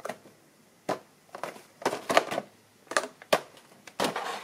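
Plastic blister pack of a carded action figure being handled and turned over in the hands: a run of irregular crinkles and sharp clicks from the clear plastic bubble against the card, loudest about two seconds in.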